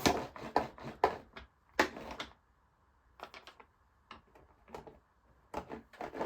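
Rolling lightly through tacky plastisol ink to clear stringing, making a dense run of quick sticky crackles and clicks for about two seconds, then scattered ticks.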